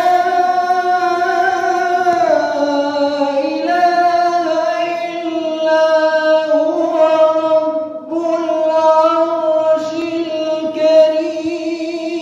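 A boy's solo religious chant in a high voice, amplified through a microphone. He holds long, ornamented notes that step up and down in pitch, pauses briefly for breath about eight seconds in, and ends on a wavering vibrato.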